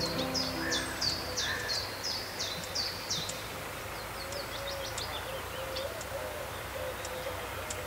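Wild birds singing: a run of high, sharply falling notes about two a second, then a quicker series of high notes, with a faint low wavering call in the background.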